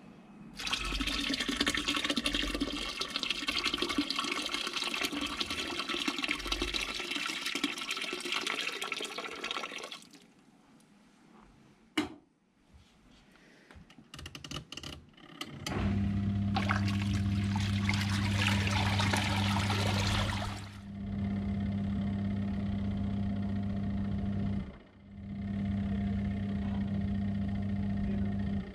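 Hot water poured from a kettle into the wash tub of a twin-tub portable washing machine for about ten seconds, then clicks and the lid closing. The wash motor then starts with a steady electric hum and water sloshing, cutting out briefly twice as the agitator changes direction.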